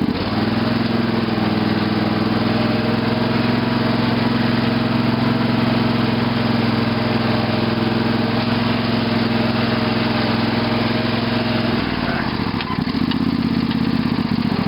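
Briggs & Stratton 18.5 hp Intek engine of a Craftsman lawn tractor running steadily while driving. About twelve seconds in, the engine speed drops briefly, then picks back up.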